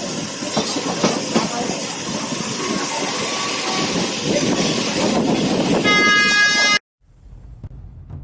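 Train running on the rails, a steady loud rushing and rattling noise. About six seconds in, a train horn sounds for about a second, and then everything cuts off abruptly, leaving only a faint low hum.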